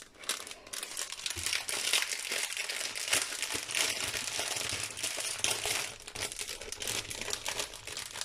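Clear plastic packaging bags crinkling and rustling as they are handled and opened, a dense run of small crackles that is loudest in the middle and eases off over the last couple of seconds.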